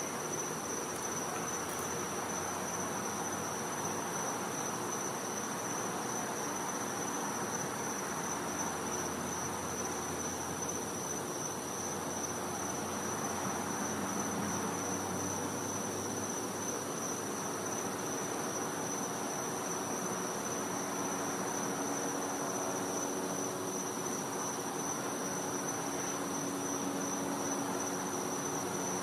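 Night insect chorus: one steady, unbroken high-pitched trill over a soft background hiss, with a faint low hum.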